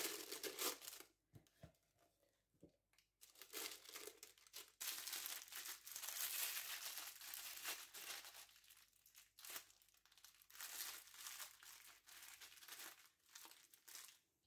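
Plastic piping bag crinkling and rustling in faint, irregular bursts as whipped cream is filled into it.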